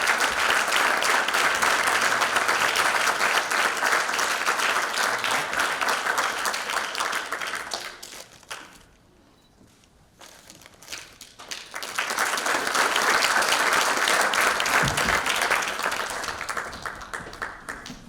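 Audience applauding. The clapping dies away about eight seconds in, a few scattered claps break a short lull, and then a second round of applause swells up and thins out near the end.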